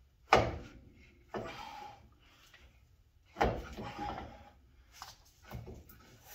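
Two sharp metal clunks about three seconds apart, each followed by about a second of scraping and rattling, as RCV axle parts are worked by hand into a GM Dana 44 steering knuckle; a few lighter knocks follow near the end.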